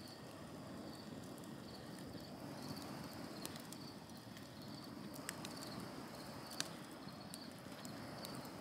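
Wood campfire burning softly, with scattered crackles and pops and one sharper pop about two-thirds of the way through. A faint high chirp repeats over and over behind it.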